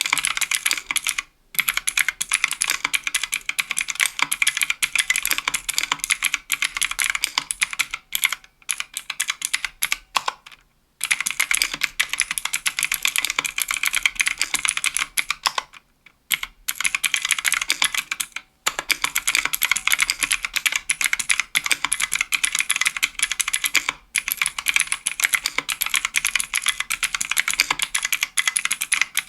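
Fast continuous typing on a 60% aluminium mechanical keyboard with Kailh Pro Light Green clicky switches and GMK keycaps, a dense run of crisp, high clicks broken by a few brief pauses.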